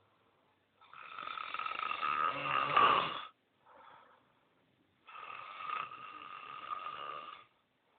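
Someone snoring at full blast: two long, rasping snores of about two and a half seconds each, with a short soft breath between them. The first snore builds louder towards its end.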